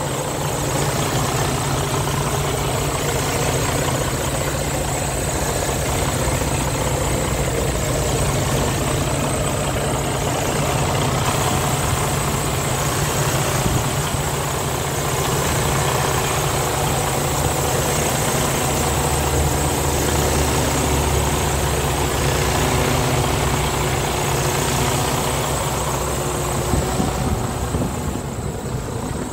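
Detroit DD15 inline-six diesel engine of a Freightliner Cascadia semi-truck idling steadily with the hood open.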